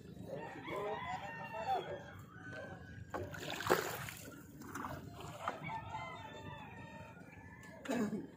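A rooster crowing, with a short noisy splash of water around the middle.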